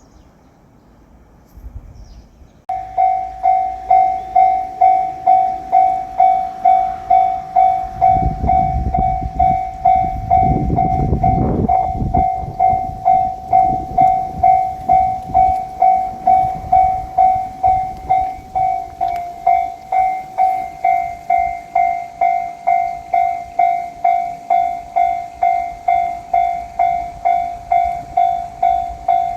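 Japanese level-crossing warning bell starts up a few seconds in and dings steadily, about one and a half strikes a second, signalling an approaching train. About a third of the way through, a diesel train rumbles past over the crossing while the bell keeps ringing.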